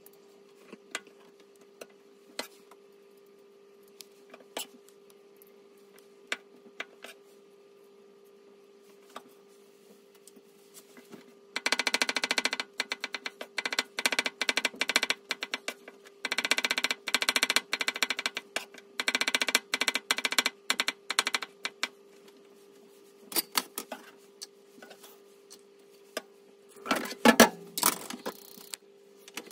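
Kitchen knife chopping garlic on a plastic cutting board, played at four times speed, so the chops run together into rapid ticking in three long runs, with scattered single knife taps before them and a louder clatter near the end. A steady hum sits underneath.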